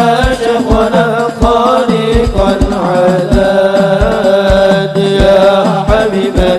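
Men singing sholawat, Arabic devotional praise of the Prophet, together into microphones in one long-held, ornamented melodic line, over regular low drum strokes about twice a second.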